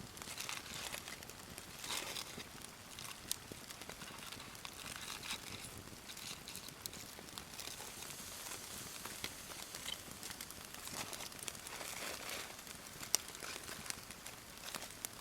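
Aluminium foil crinkling as a foil-wrapped food packet is handled, in bursts about two seconds in and again around eleven to twelve seconds, over a wood campfire crackling with sharp pops throughout.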